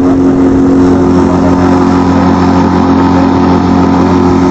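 Outboard motor on a wooden cot boat running steadily under way, a loud, even drone that holds one pitch throughout.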